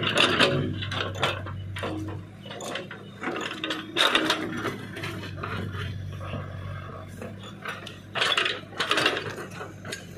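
Backhoe loader's diesel engine running steadily while its steel bucket scrapes and knocks against rocks and stones. The clanks come at irregular moments, loudest near the start, about four seconds in, and again around eight to nine seconds in.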